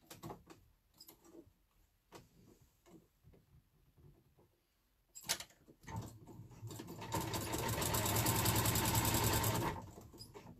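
Electric sewing machine stitching a seam, running steadily with a fast, even stitch rhythm for about three seconds before stopping near the end. Light clicks of handling come before it starts.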